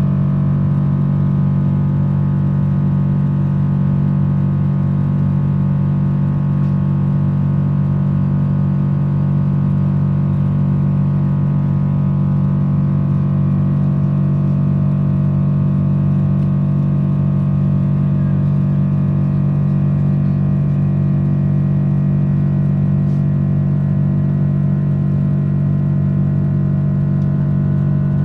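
Steady engine drone in the cabin of a Boeing 777-300: a strong low hum with several steady tones above it, unchanging in pitch and level.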